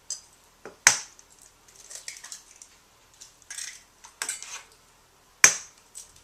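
Eggs being cracked on the rim of a bowl and broken open: a few sharp knocks of shell on the bowl, the loudest about a second in and near the end, with softer crackling of shell being pulled apart between them.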